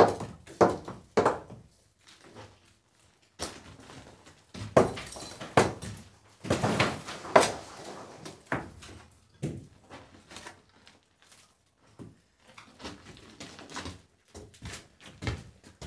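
Hammer blows and knocks against stone and timber: three sharp strikes about half a second apart at the start, more knocks a few seconds in, and a longer rattling clatter in the middle. Lighter wooden thumps and knocks follow as a long timber prop is handled.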